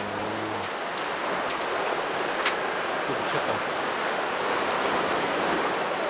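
Sea waves breaking and washing over a rocky shore, a steady rushing surf. A single sharp click comes about two and a half seconds in.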